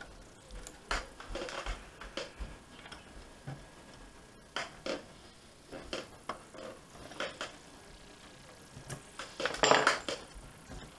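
Light metallic clicks and clatter as the sheet-metal chassis and parts of a VW RNS510 car radio are handled, with a louder rattle of the casing about nine to ten seconds in.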